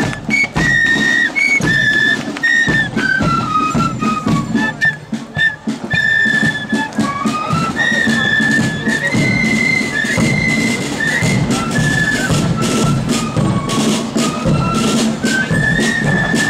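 Marching flute band playing a march: a high flute melody in unison over steady bass drum and side drum beats. The flutes drop out briefly about five seconds in, then take up the tune again.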